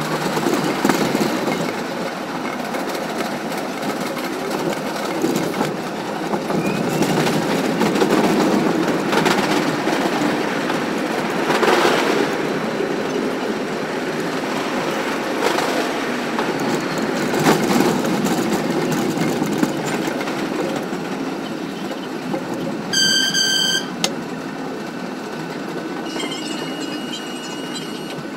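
R62A New York City subway train running along the track: steady rolling and rail noise with occasional sharp clacks over rail joints. A brief high-pitched tone sounds once near the end.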